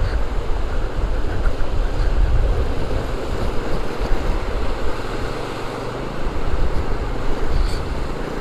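Fast-flowing stream water rushing and churning around a motorcycle as it fords the deep current, with the bike's engine running underneath.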